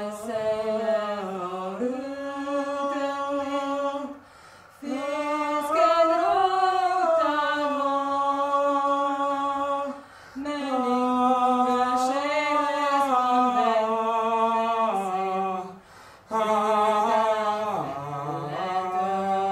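A man's voice singing long, held wordless notes a cappella, in four phrases with short breaks between them. The pitch steps up and down from note to note and wavers with vibrato.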